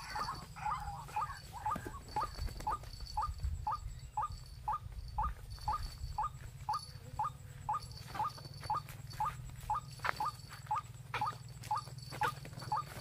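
White-breasted waterhen calling: a steady series of short, rising notes, about two a second.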